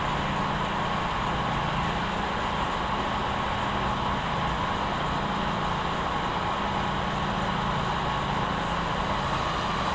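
Steady motor-vehicle engine hum with a constant higher whine over it, unchanging throughout.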